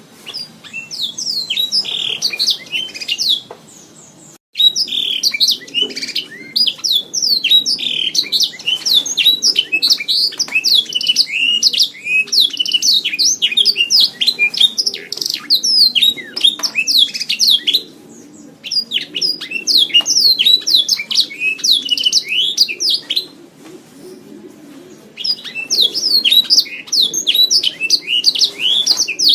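Domestic canary singing long runs of rapid, high trills and chirps, broken by short pauses about 4, 18 and 24 seconds in.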